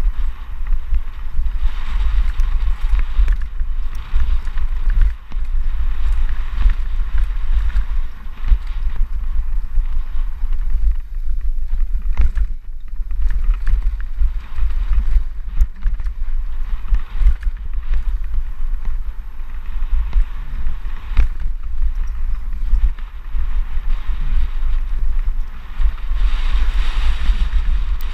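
Wind buffeting a helmet-mounted camera's microphone on a fast mountain-bike descent, over a steady hiss of tyres rolling on a dry dirt and gravel trail, with frequent knocks and rattles of the bike over bumps.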